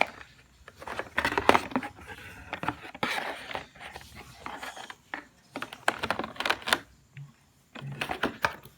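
Handling noise from a cardboard box and its packaging being opened and emptied: a busy run of clicks, knocks and rustling.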